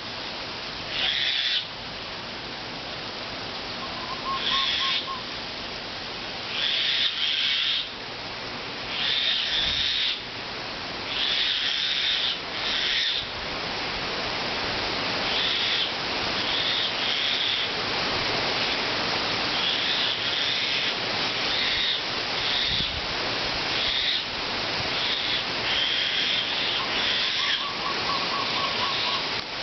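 Steady wind noise on the microphone, with birds calling again and again over it in short, high bursts, and a brief pulsed trill twice.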